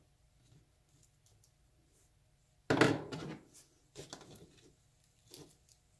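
A single sharp clack a little under three seconds in, a metal hobby knife being set down on the table, followed by a few faint scratches and rustles as fingers pick at packing tape over a servo channel on a foam model wing.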